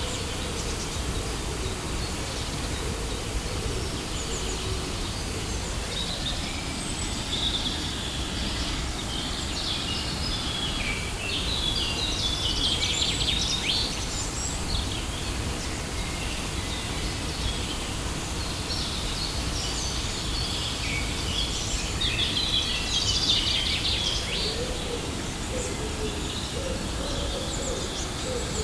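Steady rushing of a waterfall, with birds chirping on and off over it in short clusters.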